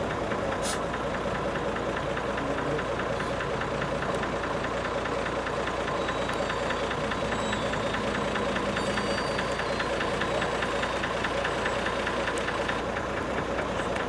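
An engine running steadily, with a fast, even ticking pulse.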